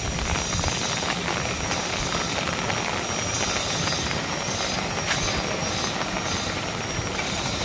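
Rain hissing steadily while wind buffets the microphone with a low, uneven rumble. The hiss swells and fades with the gusts.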